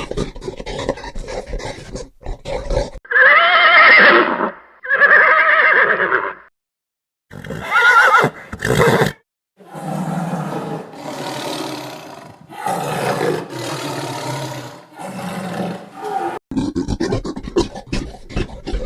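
A string of separate farm-animal calls cut one after another. About three seconds in come two long wavering whinny-like calls, likely a horse neighing, followed by a third shorter one. Then comes a run of lower, rough calls.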